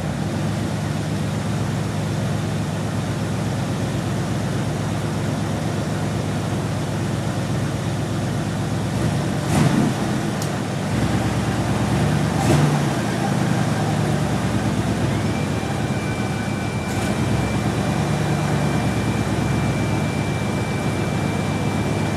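1980 Pontiac Trans Am engine idling steadily with the air-conditioning compressor engaged, the A/C working after the car sat for 20 years. There are two short knocks about ten and twelve seconds in, and a thin steady high whine from about fifteen seconds on.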